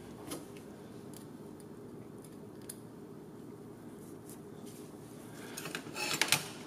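Quiet room tone with a few faint ticks, then about five and a half seconds in a short cluster of small clicks and light metallic rattles: small screws and frame parts being handled.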